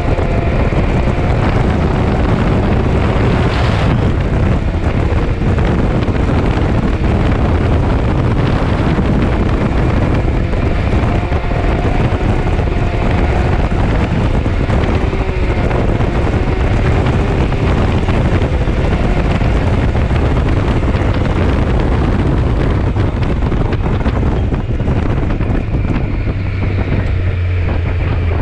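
Can-Am side-by-side off-road vehicle driving on a dirt track, its engine running steadily with the pitch drifting gently up and down. Heavy wind noise buffets the onboard microphone.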